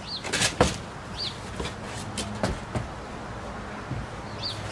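Scattered sharp wooden knocks and clatters from the trailer's wooden end wall and framing being kicked and worked loose, loudest about half a second in. A small bird chirps three times.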